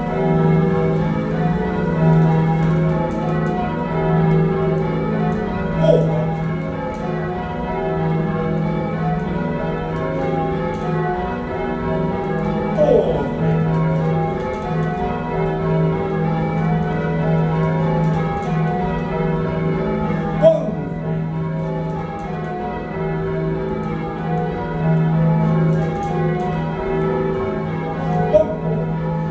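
A heavy ring of six church bells, cast by John Taylor & Co in 1925 with a tenor of nearly 20 hundredweight in E-flat, being rung in changes: a steady, overlapping stream of bell strokes. A short sliding, squeak-like sound stands out about every seven seconds.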